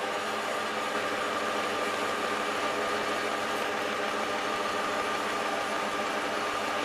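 Horizontal metal-cutting bandsaw running, its blade sawing through a bar of aluminium stock. It makes a steady, even whine.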